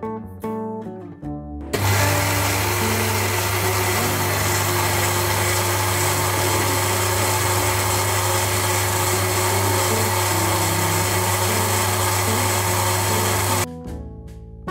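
Anex countertop blender with a glass jar running steadily, whirring eggs and other cake-batter ingredients into a liquid mix. It starts about two seconds in and cuts off about a second before the end.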